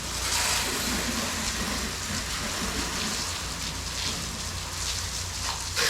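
Pressure washer spraying water onto a hard surface: a steady hiss of spray over the low drone of the machine. There is a short sharp sound near the end.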